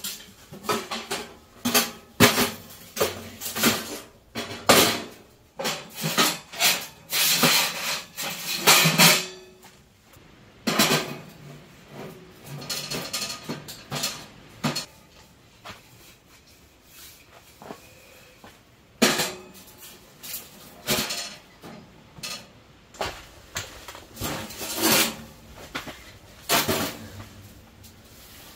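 Metal clanking and scraping as a stainless-steel tent wood stove and its stovepipe sections are fitted together: a dense run of sharp knocks for about the first ten seconds, then scattered single clanks.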